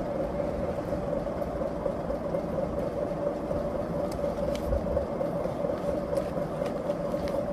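Steady machine hum with a constant mid-pitched tone over a low rumble, and a few faint clicks in the second half.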